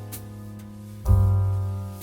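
Background instrumental music led by piano or keyboard, playing held chords over a low bass note, with a new chord coming in about a second in.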